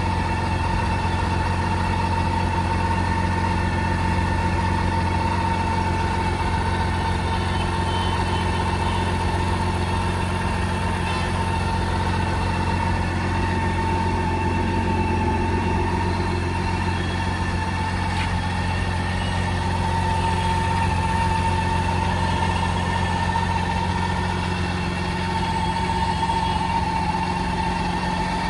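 BMW K1600 GTL's inline-six engine idling steadily, with a constant hum and a whine that holds one pitch.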